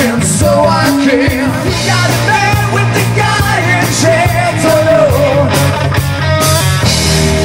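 Live rock band playing loud: a lead vocal sung over electric guitars, bass guitar and a drum kit with cymbal hits. Near the end the singing stops and the band holds a sustained chord.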